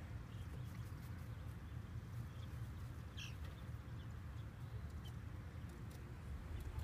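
Steady low outdoor rumble, with one brief, faint high peep from the young hens in the pen about three seconds in.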